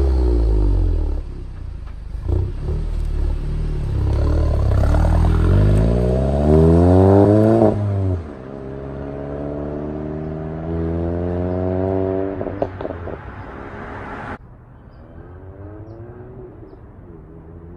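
Exhaust of a 2017 Volkswagen Golf GTI MK7's turbocharged 2.0-litre four-cylinder, with catted downpipe and resonator delete on a Stage 2 tune, as the car is driven hard: the note falls off with crackles and pops on overrun, then rises in a long pull, drops suddenly at a lift or gear change, and climbs again with a few more cracks. From about two-thirds of the way through the sound turns duller and quieter while still rising.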